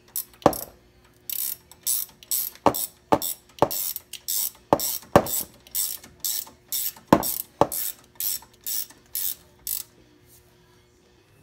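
Ratchet wrench clicking in a steady rhythm, about two clicks a second, as a brake caliper bolt is tightened, with several heavier knocks of a hand smacking the wrench. The clicking stops about ten seconds in.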